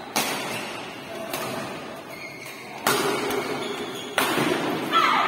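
Badminton rackets striking the shuttlecock in a fast doubles rally: four sharp smacks about a second and a half apart, echoing in the hall. A short falling squeal comes near the end.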